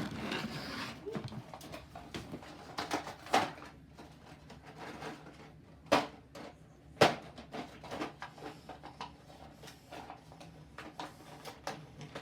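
Scattered clicks, knocks and rustling from plastic toy cars and their packaging being handled and opened, with two sharp knocks about six and seven seconds in.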